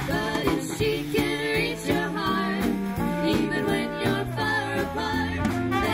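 Live swing band playing: three women singing into microphones over a horn section of saxophones and trombones, with electric bass, guitar and drums keeping a steady beat.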